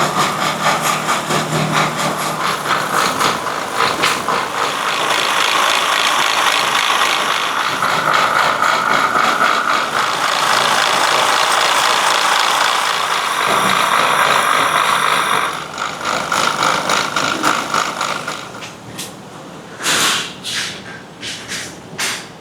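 Factory machinery running with a fast, steady mechanical rattle. It drops off about two-thirds of the way through, leaving a few separate sharp clacks near the end.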